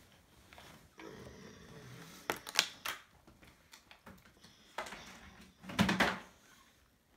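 Small plastic toy vehicle parts clicking and clacking as they are handled, in short clusters of sharp knocks, loudest about two and a half and six seconds in.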